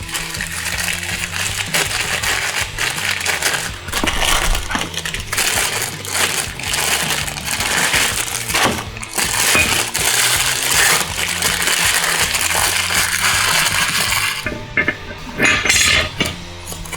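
Small metal parts clinking and rattling as they are handled on a workbench, with background music playing underneath.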